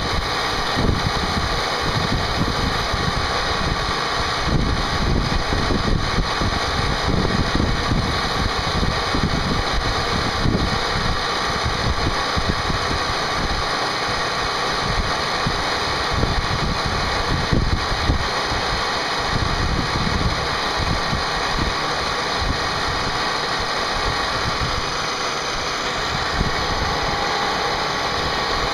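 CNC machine running a part program: a steady spindle whine over a rough, uneven rumble from the cutting and the machine's motion.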